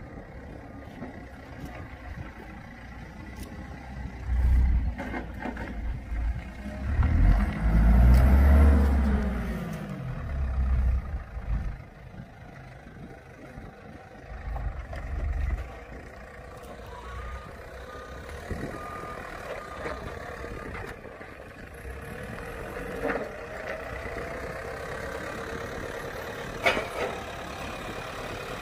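Heavy vehicle engines running, with louder surges where an engine revs up and drops back, the strongest about a quarter of the way in. A short row of faint beeps, like a reversing alarm, comes just past the middle.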